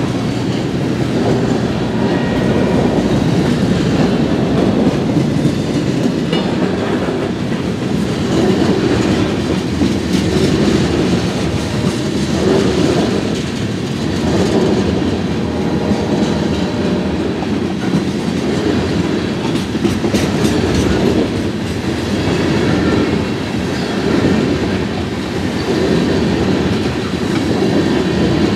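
Freight cars, boxcars and then tank cars, rolling steadily past: a continuous rumble of steel wheels on rail with the clickety-clack of wheels over the rail joints.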